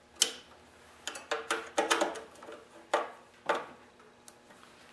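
Ratchet wrench clicking in short, uneven runs of sharp metallic ticks while the recoil starter's mounting bolts are tightened.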